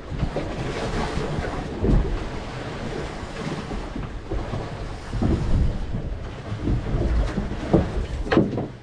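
Wind buffeting the microphone in uneven low rumbles, over the wash of a choppy sea against a small boat, with a few brief knocks.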